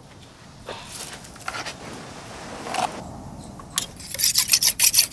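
Light rustling and handling as a piece of raw beef is lifted from a wicker basket onto a wooden board. Near the end, a fast rhythmic scraping starts, about five strokes a second, louder than anything before it.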